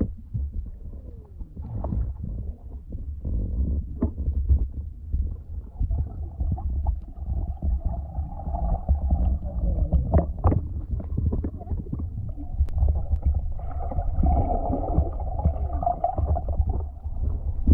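Muffled underwater sound picked up through a GoPro's waterproof housing: a steady low rumble of moving water with scattered clicks and knocks.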